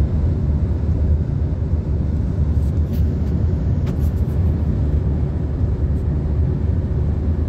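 Steady low rumble of road and engine noise inside a moving car's cabin at highway speed, with a few faint ticks around three and four seconds in.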